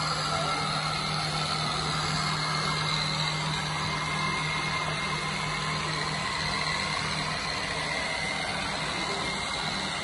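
Makita DRC200 cordless robotic vacuum cleaner running: a steady low hum with a thin, constant whine above it.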